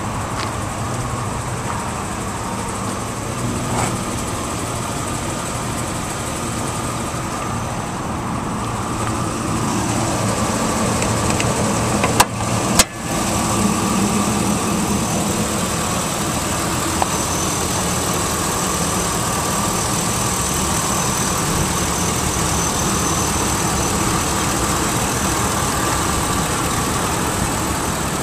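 Chevrolet truck's engine idling steadily, with two sharp clicks about twelve seconds in.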